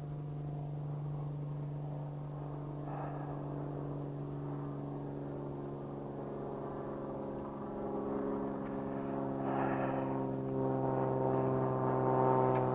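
A steady, even-pitched engine-like drone that grows louder in the second half.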